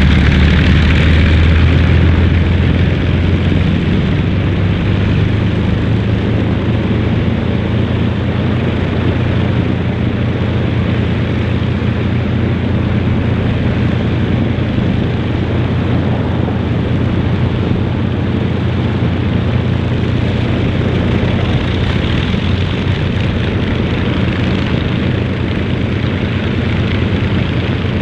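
Avro Lancaster's Rolls-Royce Merlin V12 piston engines running on the ground at low power, a steady deep drone. The drone is a little louder for the first two seconds, then settles.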